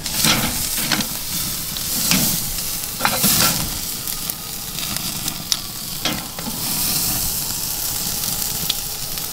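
T-bone porterhouse steak sizzling hard as it sears directly over an open charcoal fire on a kamado grill, its fat rendering. A steady hiss with a few louder swells and scattered sharp pops and crackles.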